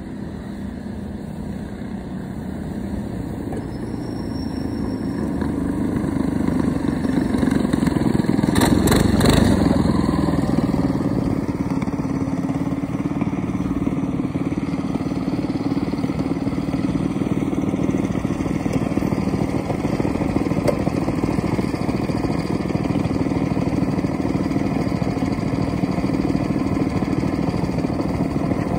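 Small single-cylinder minibike engines running at speed, growing louder as they approach and passing about nine seconds in, after which a steady engine drone carries on.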